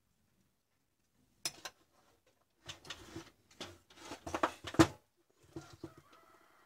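Handling noise from an angle grinder's plastic housing and switch being fitted and moved on a workbench: a click, then a run of knocks and rattles, the loudest a knock near the end, followed by a few soft clicks.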